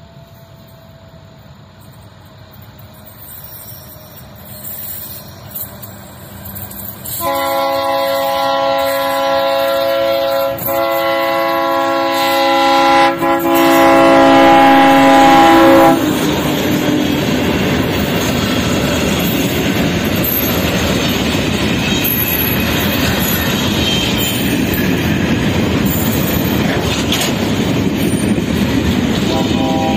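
TGM8 diesel locomotive approaching, growing louder, then sounding its horn for several seconds about seven seconds in, with two brief breaks. It then runs close past with its passenger cars, the wheels clattering over the rails.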